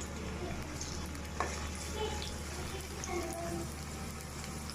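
Chopped onion frying in hot soybean oil in a karahi: a steady sizzle, with a single sharp knock about one and a half seconds in.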